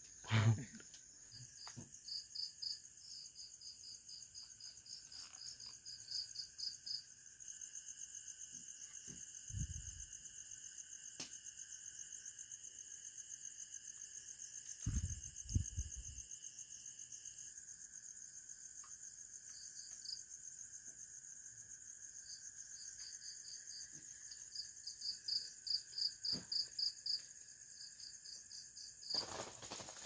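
Night insect chorus: several steady high-pitched trills from crickets and other insects, with bursts of rapid chirping coming and going. A few dull low thumps break in about a third of the way through and again near the middle.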